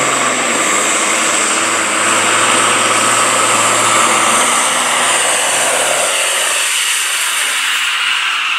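Diesel semi truck engine at full throttle under heavy load, dragging a weight sled in a truck pull, running loud and steady with a high whine over it. The low engine note drops away about six seconds in.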